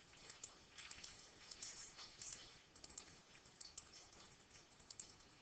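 Near silence with faint, irregular computer mouse clicks, as points of a free-hand selection are clicked around an image.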